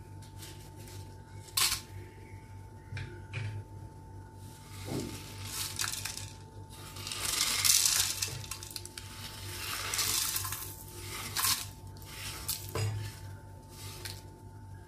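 Dry whole spices poured from a wooden board into a dry clay pot: a few separate knocks of wood on the pot, then longer stretches of seeds and pods rattling onto the clay about halfway through and again a little later.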